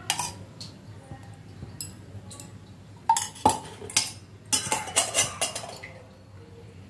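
Metal kitchen utensils clinking and knocking against pots and dishes. There are a few sharp knocks about three seconds in, then a quick cluster of clinks around the five-second mark.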